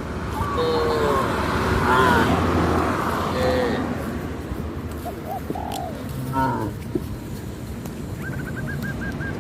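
Farmyard animals calling: several short, pitched calls over a steady background, ending in a rapid run of high repeated notes, likely from poultry among the herd of cattle.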